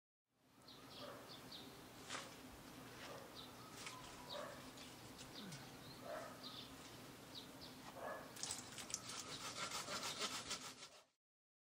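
Hand saw cutting through tree branches in quick rhythmic strokes, starting about eight seconds in and stopping suddenly near the end. Underneath is a faint outdoor background with scattered bird calls.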